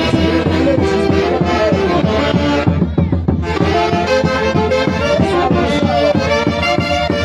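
Festive Peruvian band music in the Santiago style: wind instruments play a melody in held notes over a steady beat. The sound briefly thins out about three seconds in.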